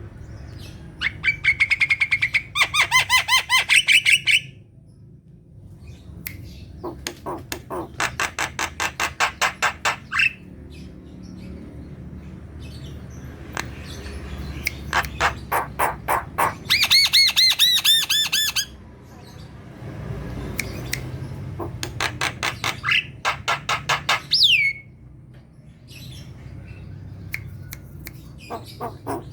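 Javan myna singing: bouts of fast repeated ringing notes, several to the second and a few seconds each, with a sharp falling whistle near the end.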